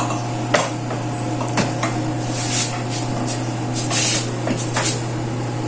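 A few light clicks and knocks of household objects being handled, over a steady low hum.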